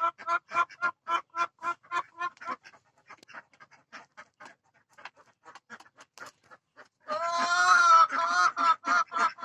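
Laying hens calling: a quick run of short clucks, about four a second, for the first couple of seconds. About seven seconds in comes a loud, drawn-out call and then a shorter one. This is the pre-laying call of a hen that is about to go to the nest.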